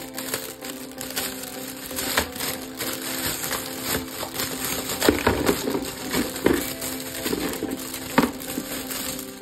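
Plastic packaging crinkling and plastic toy gun parts clicking and knocking as they are handled, busiest past the middle with a sharp click near the end, over steady background music.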